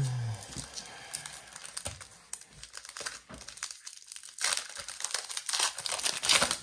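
Trading-card pack wrapper being torn open and crinkled: scattered crackles, then a burst of loud crinkling in the last couple of seconds.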